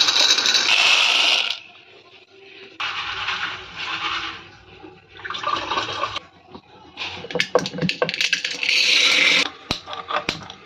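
Dried kidney beans poured out of a plastic container, then tap water running and splashing as the beans are rinsed in a bowl at the kitchen sink, in several short spells. A few sharp clicks near the end.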